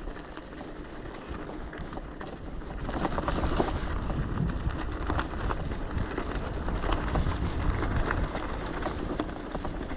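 Bicycle riding over a rutted dirt track, with wind buffeting the microphone and a stream of clicks and rattles from the bike that gets louder about three seconds in.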